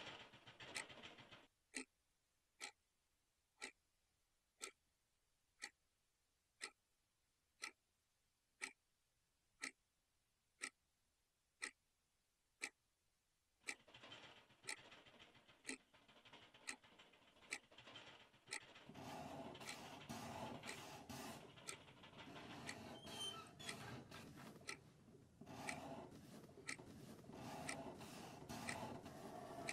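A clock ticking once a second, faint and regular. For the first dozen seconds it is alone in near silence. About fourteen seconds in, a steady noise rises beneath the ticks and grows louder about five seconds later.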